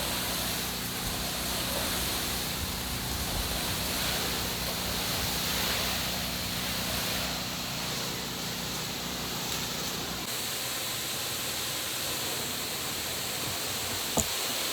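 Pressure washer spray rinsing house siding from a distance: a steady rushing hiss of water. A low hum underneath drops away about ten seconds in, and there is a small tick near the end.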